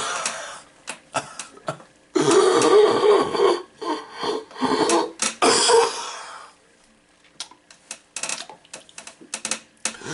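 A person's voice making loud, noisy non-word sounds in two long stretches, followed by a run of faint scattered clicks.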